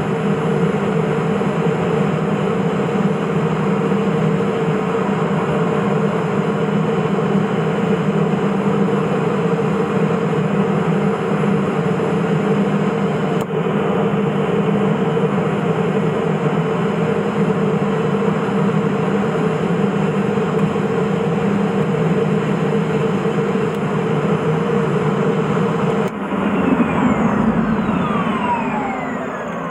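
Rolls-Royce 250 turboprop of a Cessna P210 Silver Eagle running with a steady drone, heard inside the cockpit. Near the end the sound changes to several falling whining tones as the turbine winds down, and it grows quieter.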